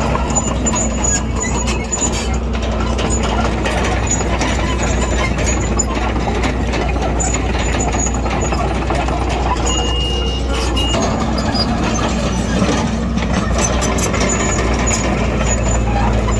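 Heavy diesel earthmoving machinery, a bulldozer and dump trucks, running steadily under work, with a short high beep about ten seconds in.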